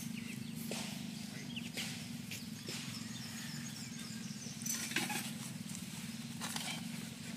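Irregular rustles and soft knocks of movement through grass, loudest about five seconds in, with a few faint high chirps, over a steady low hum.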